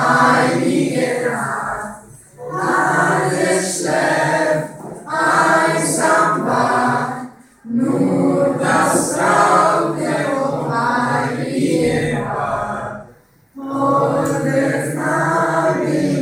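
A group of teenage girls and boys singing a Christmas song together, apparently without instruments. They sing in phrases broken every few seconds by short pauses for breath.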